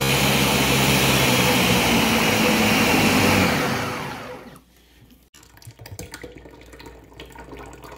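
Countertop jug blender running at full speed, pureeing cooked pumpkin soup, then spinning down and stopping about four seconds in. Softer sounds of thick soup being poured from the blender jug into a pot follow.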